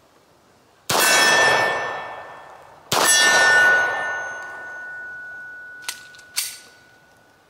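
Two 9mm shots from a Beretta 92FS pistol about two seconds apart, each followed by the long ringing of a struck steel target, fading over several seconds. Two shorter, quieter knocks follow near the end.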